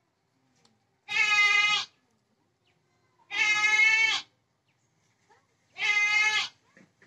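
A goat bleating three times, each call loud, steady in pitch and just under a second long, spaced about two seconds apart.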